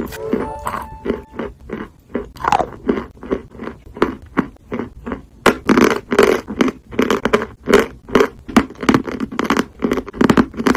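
Close-miked mouth chewing and crunching a bite of edible chalk, crisp crunches repeating about three times a second.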